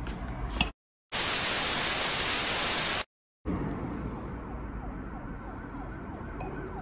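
A loud burst of white-noise static lasting about two seconds, cut in and out abruptly with a short dead silence on either side. Then room ambience, with a siren's fast rising-and-falling wail fading in during the last couple of seconds.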